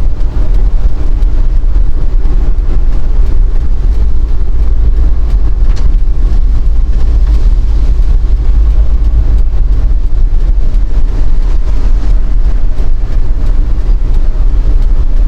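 Very strong wind buffeting the microphone on a moving vehicle: a loud, steady, low rumble.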